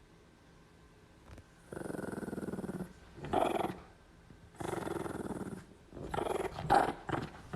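A dog growling in long rattling stretches of about a second each, broken by shorter, louder bursts. It starts after a pause of nearly two seconds.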